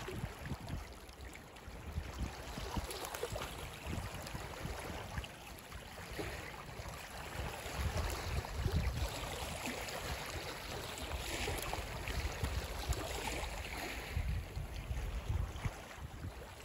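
Wind buffeting the microphone in gusts over small waves lapping on a shingle shore.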